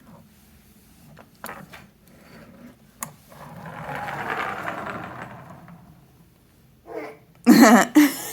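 Toy pullback car's spring motor whirring as it is let go and runs, swelling and fading over a few seconds, after a few light clicks. A child's voice cuts in loudly near the end.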